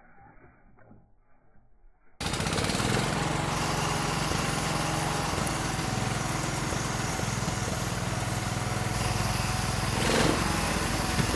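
A 1926 Fordson Model F snow tractor's four-cylinder engine running steadily with an even low chugging. It cuts in suddenly about two seconds in, after a short stretch of faint sound.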